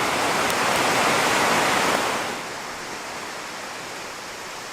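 Steady rushing of river rapids and falls, a loud even hiss that drops in level about two seconds in.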